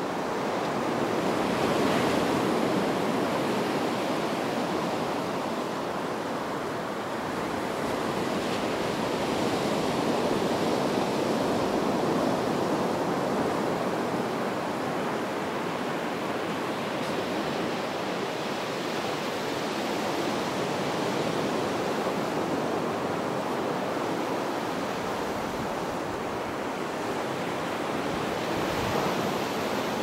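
Sea surf breaking and washing up a sandy beach: a continuous rush of waves that swells and eases every several seconds.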